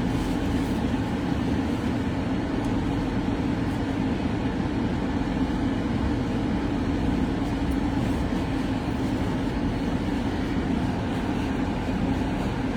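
A steady, unchanging low hum with a hiss over it, like a vehicle's running noise heard from inside.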